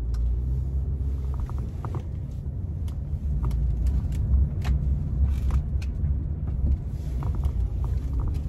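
Inside a car driving slowly: steady low engine and road rumble, with scattered light clicks and creaks.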